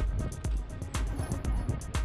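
Background music with a steady beat: a kick drum about twice a second and quick hi-hat ticks in between.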